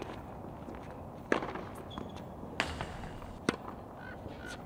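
Tennis ball being struck by rackets and bouncing on a hard court during a baseline rally: three sharp pops, roughly a second apart.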